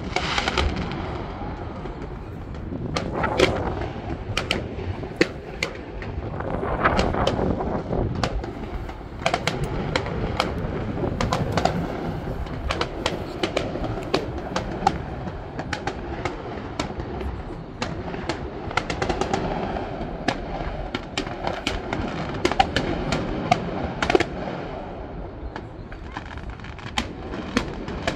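Fireworks display: aerial shells bursting in many sharp, irregular bangs and crackles, in quick clusters, over a steady noisy background.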